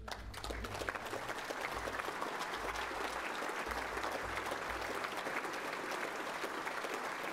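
Audience applauding steadily, starting just as the speech ends.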